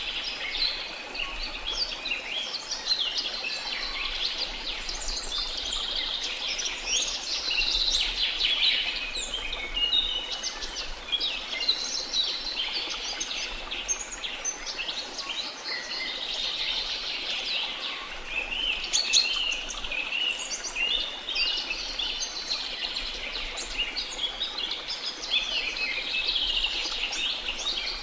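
Chorus of rainforest birds chirping and calling densely and continuously over the steady rush of a waterfall.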